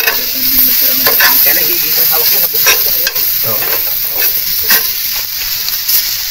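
Shellfish sizzling in a hot pan as they are stirred. A steady hiss of frying runs throughout, broken by frequent short scrapes and clicks from the stirring.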